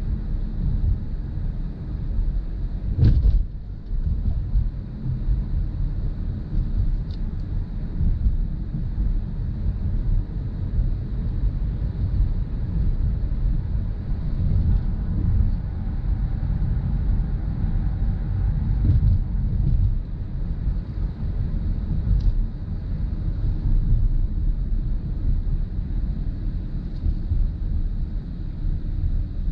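Cabin noise inside a 2020 Mazda CX-30 on the move: a steady low rumble of road and tyre noise, with one sharp thump about three seconds in.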